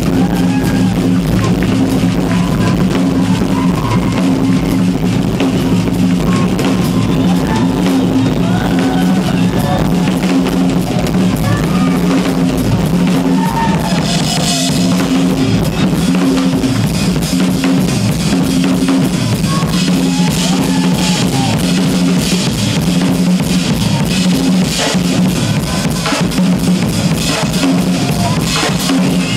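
Live drum-kit solo: fast, dense strokes across bass drum, toms and snare, with a burst of cymbal crashes about halfway through.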